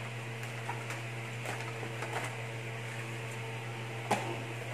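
Light clicks and crinkles of a cardboard box and a clear plastic packaging tray being handled, with a sharper click about four seconds in, over a steady low electrical hum.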